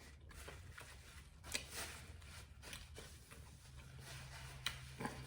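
Faint eating sounds: chewing and handling food, heard as a few soft scattered clicks and smacks. A faint low hum comes in past the middle.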